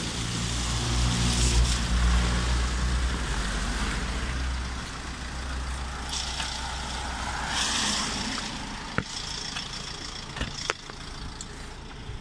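A motor vehicle passing close on a wet street: a low engine hum for the first few seconds, then the hiss of tyres on wet asphalt. A few sharp clicks come near the end.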